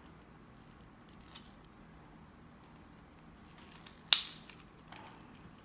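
One sharp snap about four seconds in, a piece of 3D-printed PLA support material breaking off the printed figure, with a couple of faint clicks of handling before it.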